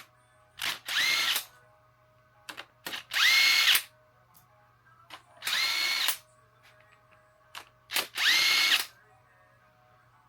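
Cordless impact wrench run in four short bursts and a couple of brief blips. Each spins up to a steady whine and stops, backing out the cylinder head bolts of a Ford Barra inline-six.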